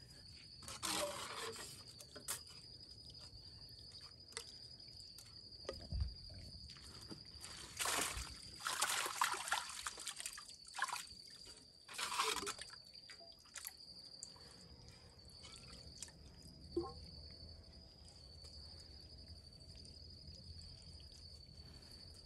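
Muddy water sloshing and splashing in a dug-out spring pit as a PVC pipe is worked through it, in short noisy bursts about a second in and again around eight to thirteen seconds in. A steady high insect trill goes on underneath.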